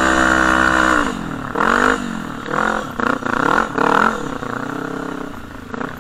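Sport quad (ATV) engine held at high revs, then the throttle closes about a second in. Several quick blips of the throttle follow, each rev rising and falling, before it settles to a lower, steadier note near the end.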